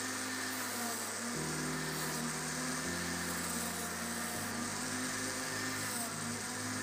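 Electric grinder fitted with a sanding disc running steadily, with a block of wood pressed against it and being sanded, a continuous hiss. Under it, background music with low notes that change about every second and a half.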